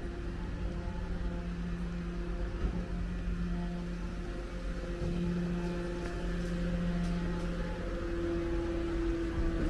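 A motor vehicle's engine humming steadily over a low rumble, its pitch holding level.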